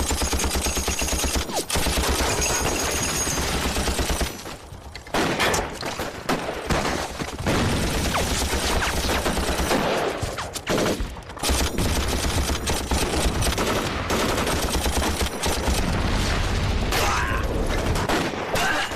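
Heavy, sustained battle gunfire: rapid machine-gun bursts mixed with rifle shots, with a short lull about four seconds in.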